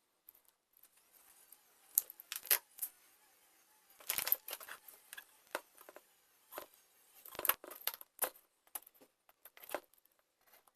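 Irregular clicks, clacks and light metallic clinks of small hard parts and tools being handled and set down during the repair of an electric drill, loudest in a cluster about four seconds in and again about seven and a half seconds in.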